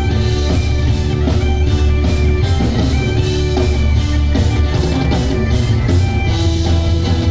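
Live folk-rock band playing loud medieval-style music: bagpipes, fiddle and acoustic guitar with held melody notes over a steady drum beat.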